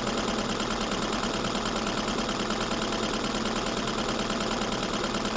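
1950s Brother treadle sewing machine running steadily, its mechanism turning over at an even pace.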